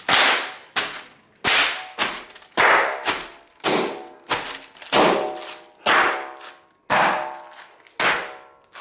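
Bubble-wrap packaging popping under foot: about a dozen sharp, loud pops, one every half-second to second, each dying away quickly.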